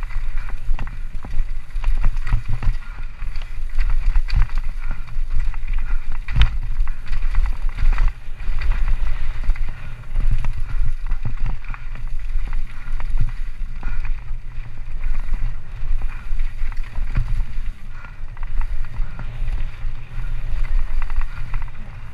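Orange Alpine 160 mountain bike descending a rough dirt trail at speed, heard from a helmet-mounted camera: wind buffeting the microphone as a steady low rumble, with tyres and frame clattering over bumps and roots in a stream of rapid knocks. One hard knock stands out about six seconds in.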